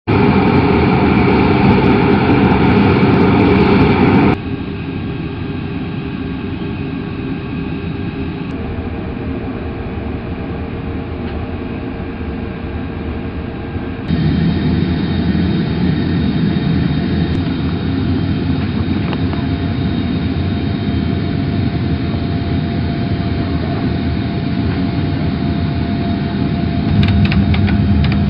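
Large jet transport aircraft's engines running with a steady noise and a held whine. The level and tone change abruptly twice, about four seconds in and again about fourteen seconds in.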